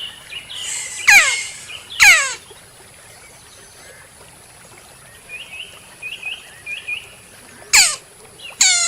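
Birds calling: loud, sharp calls that slide steeply down in pitch, two about a second apart near the start and two more near the end, with a few soft short chirps in between.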